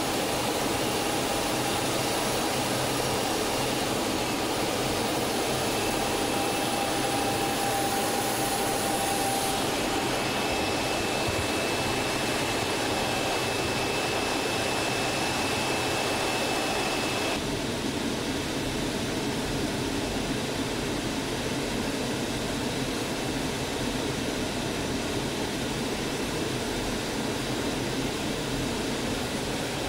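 Steady jet noise inside the cockpit of an L-39 Albatros trainer in flight: its single AI-25TL turbofan running, with a few faint whines over the noise. A little over halfway through, the sound drops slightly in level and loses some of its high hiss.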